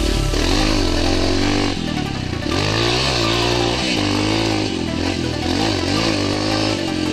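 Dirt bike engine running under riding load, its pitch rising and falling over and over as the throttle is worked and gears change.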